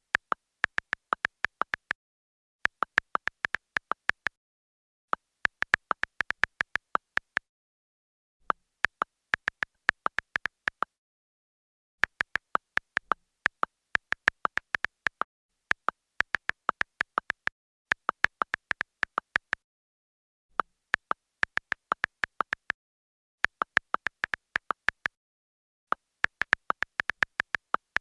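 Smartphone keyboard typing sound: quick runs of short key-tap clicks, about five to ten taps a run, with brief pauses between the runs.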